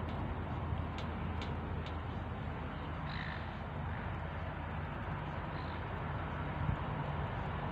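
A steady low rumble with a few faint clicks in the first two seconds, and two short bird calls about three and five and a half seconds in.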